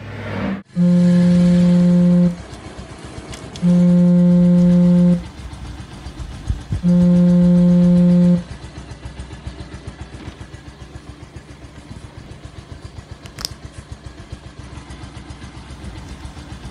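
Three long, loud blasts of a vehicle horn, each about a second and a half, one after another, over a motorcycle engine idling with a quick steady pulse.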